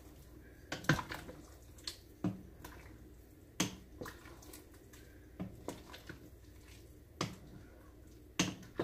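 Kitchen utensil clicks and knocks, about nine sharp taps at irregular intervals, over a faint steady background.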